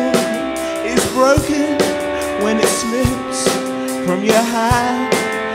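Background music: a song with a drum beat and a singer's voice over held instrumental notes.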